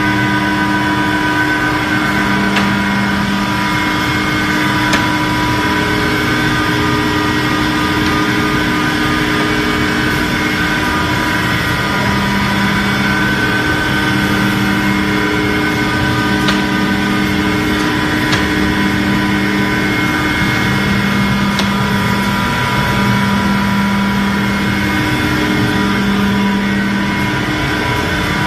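Wide-belt sanding machine running steadily as stainless steel fence panels feed through it: a loud, even mechanical noise with several held whining tones, a low hum that comes and goes every few seconds, and a few faint clicks.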